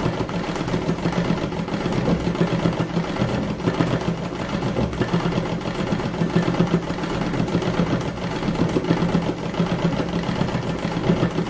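Treadle-driven Montgomery Ward Signature series sewing machine running steadily in free-motion embroidery, its needle stitching in a rapid run of strokes, slowing briefly a couple of times.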